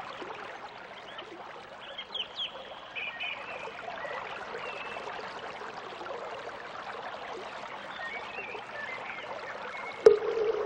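Running water, a steady hiss, with a few short bird chirps about two seconds in. Just before the end, a bell is struck once and keeps ringing.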